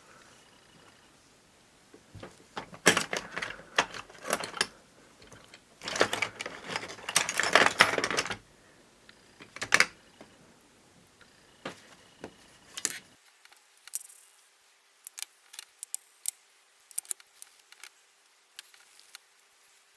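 Small metal parts of a vintage Ronson De-Light lighter clicking and clinking as they are handled, with dense rattling clusters about three and six seconds in, then scattered lighter clicks.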